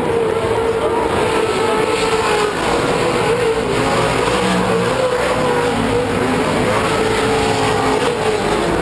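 Pro2 short-course off-road race trucks racing around a dirt track, their engines revving up and down under a steady loud din.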